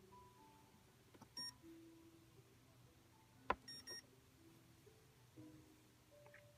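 Saitek Sensor Chess Turbo electronic chess computer giving two short high beeps, about a second in and near four seconds in, with a plastic chess piece clicking down on the board just before the second beep. Faint melodic music runs underneath.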